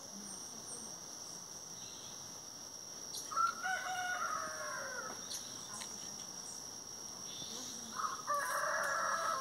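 Rooster crowing twice, once about three seconds in and again near the end, each crow lasting under two seconds. A steady high insect drone runs underneath.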